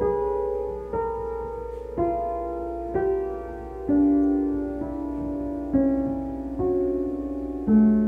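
Slow piano music: single notes struck about once a second and left to ring, the line stepping mostly downward in pitch.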